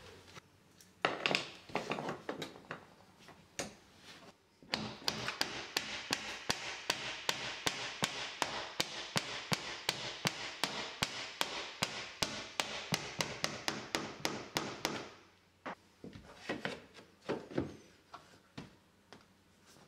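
A hand tool working at the end of a hardwood floorboard: a few scattered knocks and rubs, then about ten seconds of fast, even strokes, four or five a second, before a few more knocks near the end.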